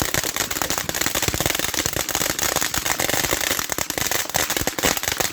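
Fireworks going off: a loud, dense, rapid string of sharp cracks and pops, many every second, keeping on without a break.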